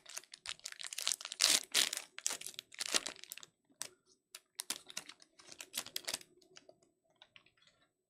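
Trading cards being handled and flipped through by hand: a quick run of dry clicks and rustles, sparser after about three and a half seconds and dying out near the end.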